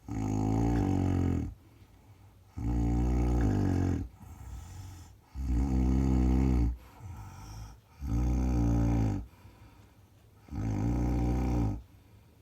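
A man snoring loudly: five long, buzzing snores at a steady pace of about one every two and a half seconds, with fainter breathing sounds between some of them.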